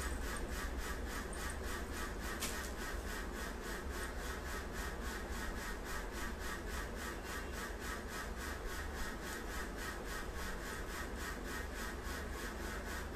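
Steady room tone: a constant low hum under an even hiss that pulses faintly about four times a second.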